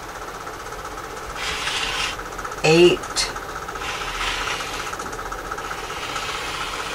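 Rotary cutter rolling through folded quilting fabric along a clear acrylic ruler on a cutting mat: two rasping cutting strokes of about a second each, over a steady background hum. A brief vocal sound comes between the strokes.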